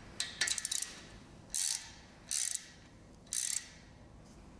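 Hand ratchet with a hex socket tightening a tapered pipe plug into an engine block's oil-gallery hole. A quick run of pawl clicks comes first, then three short bursts of clicking about a second apart as the handle is swung back between pulls.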